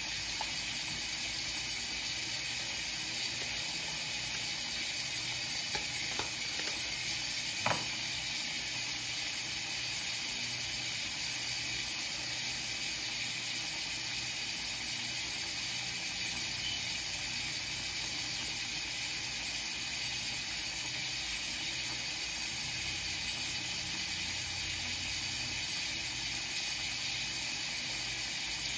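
Steady hiss with no change in level, broken by a few faint clicks, the clearest about eight seconds in.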